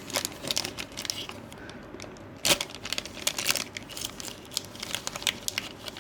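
A plastic toy egg case and its wrapping being handled and opened by hand: crinkling and light clicks, with one louder click about two and a half seconds in.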